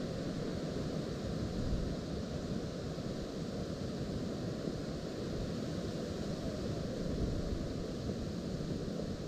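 Strong gusty wind rushing and buffeting the microphone, a steady low rumble that swells slightly about two seconds in and again about seven seconds in.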